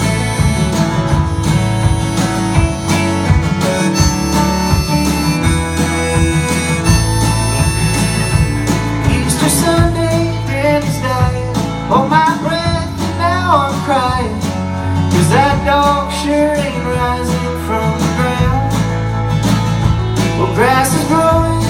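Live Americana band playing an instrumental break: strummed acoustic guitar and electric guitars over steady low notes and drums, with a lead melody of bending notes carrying the middle and returning near the end.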